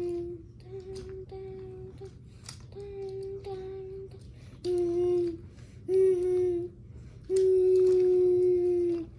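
A child humming a string of held notes with short breaks between them; the last three are louder and the final one is the longest, about two seconds.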